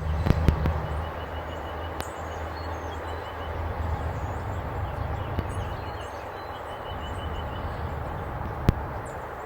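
Outdoor ambience: a steady low rumble with small birds chirping repeatedly, and a couple of sharp clicks, one about two seconds in and one near the end.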